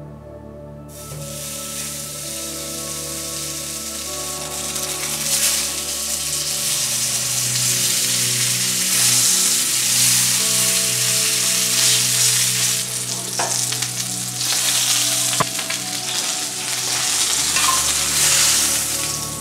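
Ribeye steak sizzling as it sears in a hot cast-iron skillet, the sizzle starting about a second in and holding loud, with two brief clicks past the middle. Soft music plays underneath.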